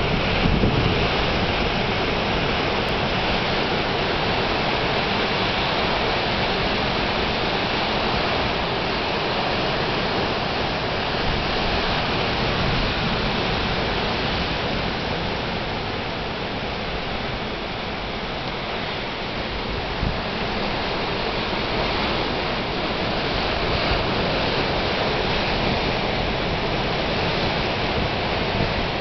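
Heavy storm surf breaking and churning against coastal rocks: a steady, loud rush of water and foam, with wind gusting on the microphone.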